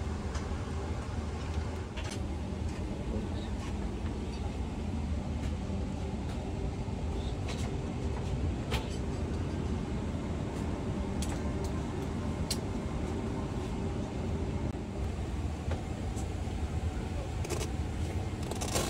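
Steady rushing hum of an airliner cabin's air conditioning at the gate, with a few light clicks from handling the seat and its controls.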